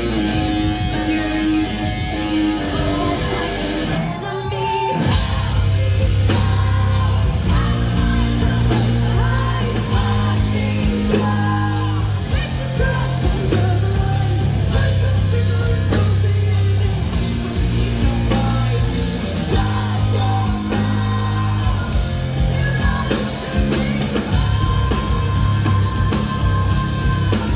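Live heavy rock band playing, with distorted electric guitar, pounding bass and drums, and a sung vocal. About four seconds in the music drops out briefly, then the full band comes crashing back in.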